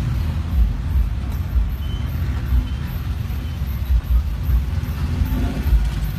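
Low, steady rumble of road traffic and engine noise heard from inside a car's cabin, following a diesel jeepney in traffic.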